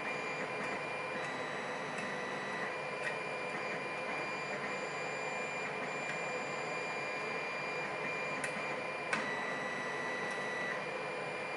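Steady hiss with a faint high whine, broken by a few faint clicks: a hook pick working the pins of a pin-tumbler challenge lock held under a tension wrench.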